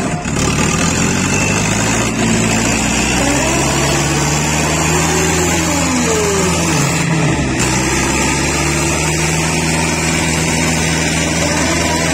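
Two diesel tractor engines, one a Swaraj, running hard under full load as the tractors pull against each other in a tug-of-war. The engine note is loud and steady, with a pitch that falls away and recovers a little past the middle.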